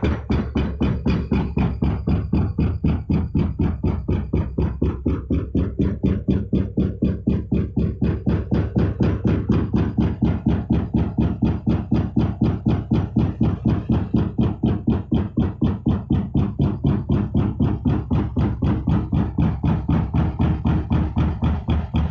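Background electronic music with a fast, steady beat over a low bass line.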